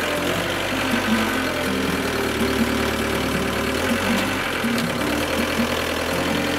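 Forklift engine running steadily, with background music over it.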